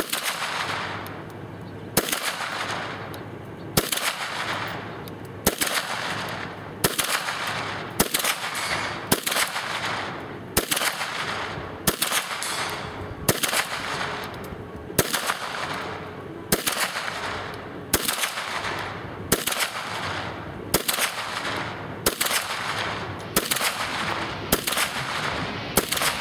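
KelTec PMR-30 pistol firing .22 Magnum (.22 WMR) rounds in slow, aimed fire: about twenty sharp shots, one every one to two seconds, each followed by an echo that dies away over about a second.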